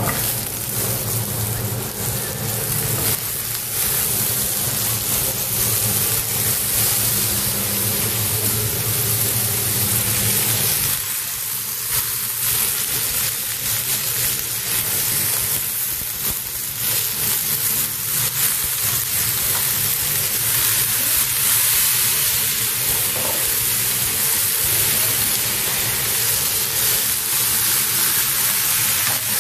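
Green beans and ground meat sizzling as they fry in a pan over a gas flame, a steady hiss with a spoon stirring them near the end. A low steady hum under the sizzle stops about eleven seconds in.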